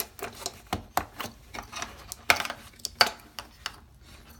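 Irregular clicks and knocks of hard plastic being handled as the bidet seat's wires are fed through and sorted, with two sharper knocks about two and three seconds in.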